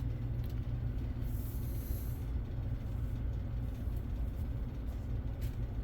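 Desktop gaming PC running just after power-up on a newly fitted motherboard: a steady low fan hum while it works through its first power-on self-test. A faint short hiss about a second and a half in.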